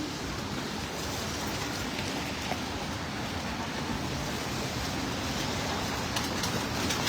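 Steady hiss of rain and traffic on wet city streets.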